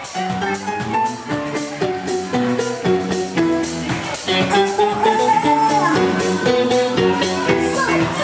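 Live band playing upbeat dance music: a drum kit keeps a steady beat under electric guitar and keyboard.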